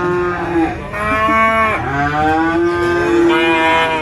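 Cattle mooing: several drawn-out, fairly high-pitched moos one after another, an odd-sounding call.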